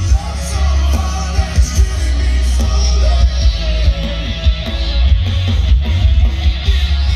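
Live heavy rock band playing loud through a festival PA, recorded from the crowd: distorted guitars, drums and a heavy, booming bass, with a singer's voice over the top.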